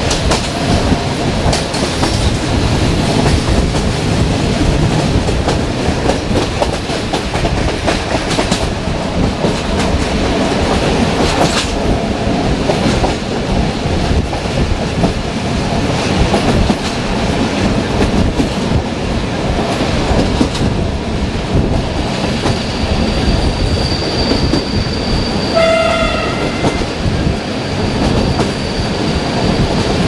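Passenger coaches running at speed over jointed track: steady wheel rumble and clickety-clack with wind rushing past the open window. Toward the end a thin high wheel squeal sets in, and a short horn note sounds briefly.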